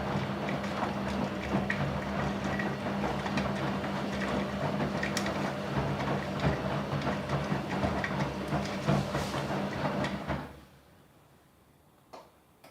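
Gorenje WA50060 washing machine's drain pump running, a steady hum with rough, irregular noise over it, then cutting off abruptly about ten seconds in. A single short click follows about two seconds later.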